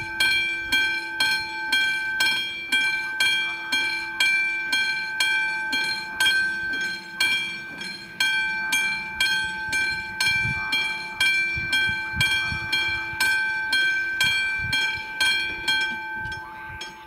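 Level-crossing warning bell ringing in even strokes about twice a second while the red lights flash and the barriers lower, signalling an approaching train. It stops shortly before the end.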